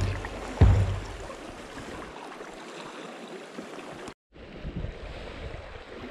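Steady rush of river current around a drifting raft, with two low beats of fading background music in the first second. The water sound breaks off briefly about four seconds in and returns.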